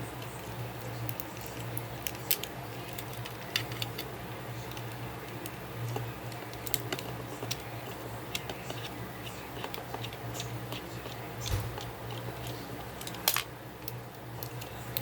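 Small plastic clicks and taps as the parts of a plastic action figure are handled and pried apart, scattered and irregular, with a sharper click near the end. A steady low hum runs underneath.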